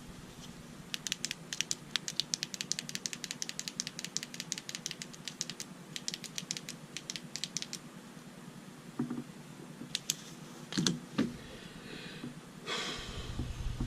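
A rapid, fairly even run of small sharp clicks lasting several seconds, then a few louder knocks of handling and a short rustle near the end.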